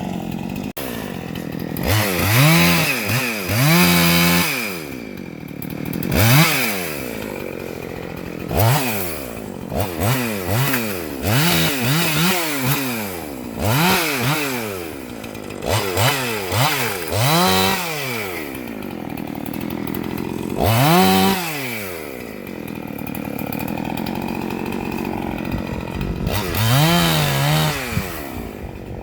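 Husqvarna two-stroke chainsaw revving up and falling back again and again, about a dozen times, with a longer stretch of steady low running about three quarters of the way through.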